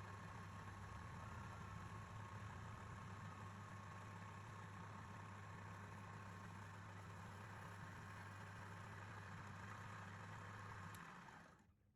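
Wood lathe's electric motor running steadily with a low mains hum, then stopping about eleven seconds in.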